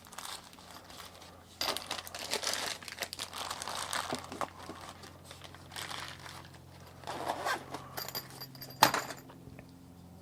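Knife packaging being handled, crinkling and rustling in irregular bursts, with one sharp click near the end.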